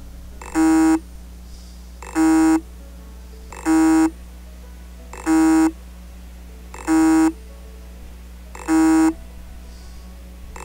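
Hard disk drive with its read/write heads stuck to the platter, buzzing in six short, even pulses about every second and a half over a steady low hum. The spindle motor tries to start but the disk does not turn: the sign of a stuck head.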